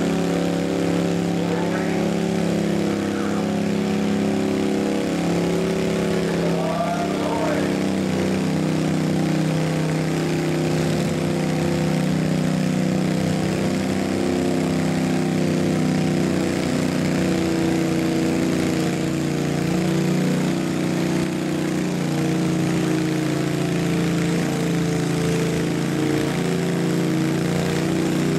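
Modified riding lawn mower engine running hard and steady under load as it pulls a weight-transfer sled, its note holding even without revving up or down.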